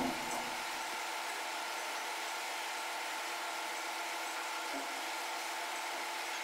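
Steady mechanical hum of forging machinery running idle, with a few faint steady tones and no blows.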